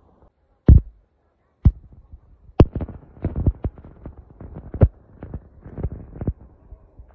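Irregular thumps and scuffs of footsteps and of the phone knocking against its microphone as it is carried over sand. The strongest thump comes a little under a second in, and a busy run of knocks follows from about three seconds in.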